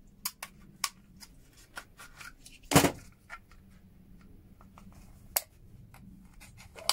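Scattered small clicks and taps of hand tools and plastic and metal relay parts being worked apart on a bench, with one louder knock about three seconds in.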